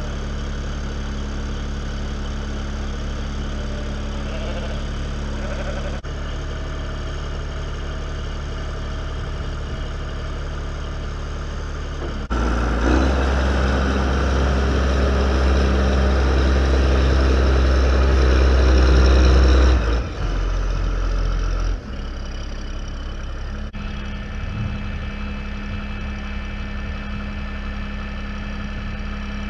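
Vehicle engine running steadily while driving. Partway through it grows louder for several seconds, then drops back suddenly.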